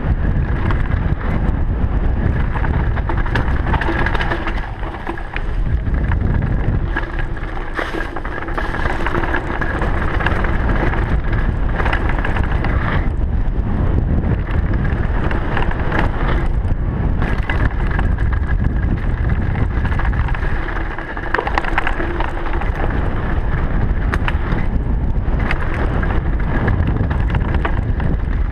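Downhill mountain bike ridden fast over a dirt trail: loud wind rush over the microphone with tyre noise on the dirt and frequent rattles and knocks from the bike. The rush eases briefly twice.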